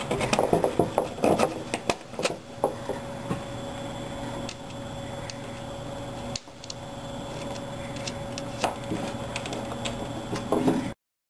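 Plywood 3D-printer frame being handled: a cluster of knocks and rattles as the wooden frame is shifted in the first few seconds, then scattered small clicks as a lock nut is fitted onto a bolt of the back plate by hand, over a steady hum.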